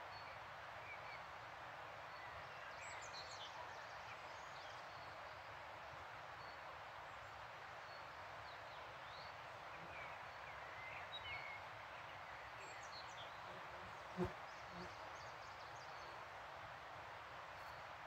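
Steady rushing of river water with scattered songbird chirps and short calls over it. A single sharp click about fourteen seconds in is the loudest moment.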